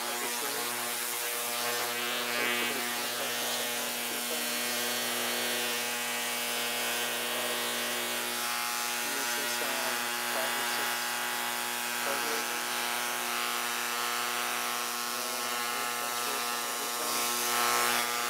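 Chicago Electric ultrasonic cleaner running a cleaning cycle, a steady electric buzz with a hiss over it, as it works a varnished carburetor in degreaser solution.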